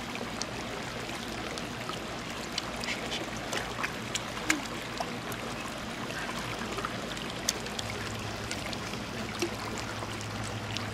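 Running water trickling steadily through a rock-lined pond, with scattered small splashes and drips as children move in the water. A faint low steady hum comes in about eight seconds in.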